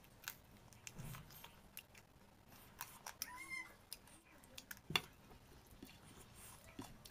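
Faint close-miked eating sounds: chewing and lip smacks as rice and roast chicken are eaten by hand, and fingers working rice across a ceramic plate, with a sharp click about five seconds in. A short pitched call, like an animal's, comes about three seconds in.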